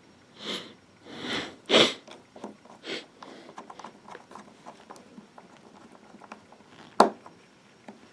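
Small tools and smartphone parts being handled during reassembly: a few short swishing noises in the first three seconds, the loudest about two seconds in, then light plastic-and-metal clicks and taps, with one sharp click about seven seconds in.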